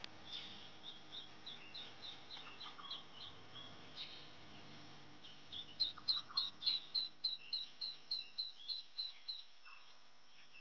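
Repeated short, high chirps from a small animal, about four to five a second: a soft run at the start, then a louder run starting about six seconds in that stops shortly before the end.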